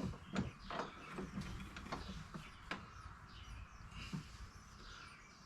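Faint scattered clicks and taps of small metal parts being handled, a few in the first three seconds, then quieter.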